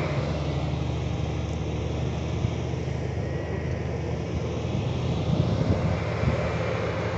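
Off-road vehicle engine running steadily, a low even drone, with a few brief knocks about five to six seconds in.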